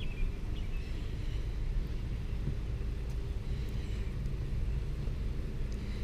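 Steady low outdoor rumble, an even background noise with no distinct events.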